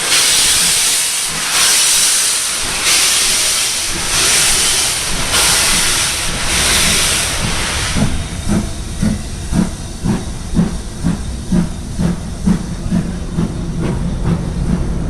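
Steam locomotive, the BR Standard Class 7 Pacific Britannia, pulling away: slow, long hissing exhaust beats, then shorter, sharper chuffs about two a second that gradually quicken as it gathers speed.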